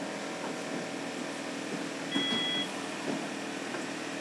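Banknote-handling machinery running with a steady hum and scattered light clicks, and a short electronic beep about two seconds in.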